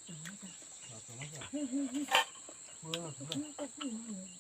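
Crickets or similar insects making a steady high-pitched drone, with people talking quietly and a single sharp click about two seconds in.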